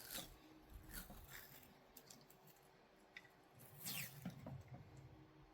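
Faint rustling and crinkling of cloth wiring-loom tape being wrapped around a wire harness, a few soft scrapes, the clearest about four seconds in.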